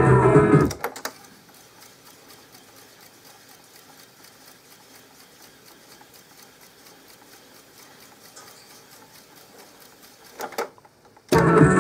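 Guitar music playing from the Tesla B 101 reel-to-reel tape recorder cuts off under a second in. The machine then fast-winds with a faint, even whir and rapid fine ticking from the spinning reels; its belts are newly replaced and the mechanism cleaned and lubricated. Two clicks come near the end as the winding stops, and the guitar playback starts again.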